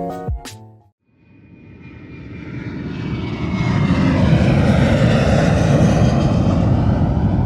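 A music phrase ends in the first second, then an aircraft passes: a rushing engine noise swells up over a few seconds and holds, with a faint falling whine above it.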